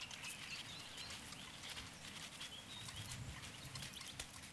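Faint reed-marsh ambience: scattered soft ticks and clicks over a low hiss, with a few faint, high bird chirps.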